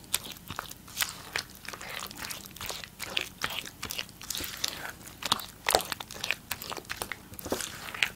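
Wooden spatula stirring and folding a wet butter-and-egg mixture in a glass bowl, working the egg into the creamed butter: irregular squelches and sticky clicks, several a second, with a few louder clicks from the spatula against the glass.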